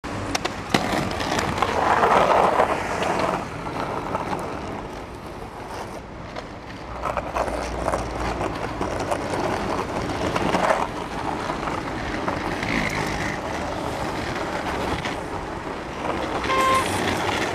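Skateboard wheels rolling on city asphalt amid street traffic, with a short horn toot near the end.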